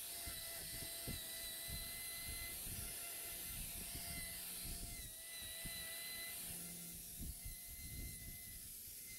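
Angle grinder with a hoof-trimming disc running at a cow's claws. It gives a thin steady whine that breaks off now and then, with scattered low knocks as the disc works the hoof horn.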